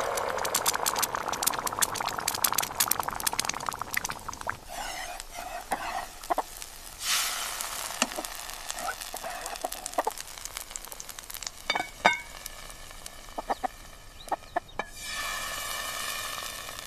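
Egg frying in hot oil in a pan, a dense crackling sizzle for the first few seconds, then lighter spatters and stirring. Near the end a hen is clucking.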